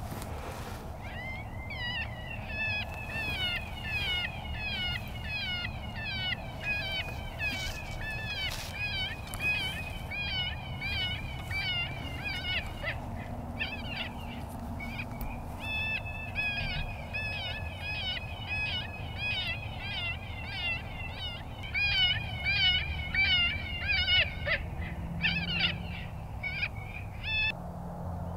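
Electronic predator caller playing an animal distress call: a fast, repeated series of short wavering high squeals, about three or four a second, with a short break about halfway, stopping shortly before the end.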